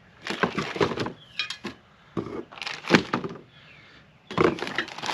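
Steel L mounting brackets being handled out of a box: irregular metal knocks and clinks, the loudest a little before three seconds in, then plastic packaging crinkling from a little past four seconds.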